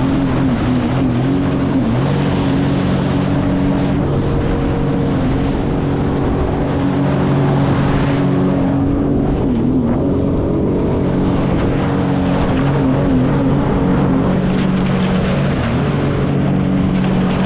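Jet ski engine running under way: a loud, steady drone that wavers a little in pitch, over a rushing noise.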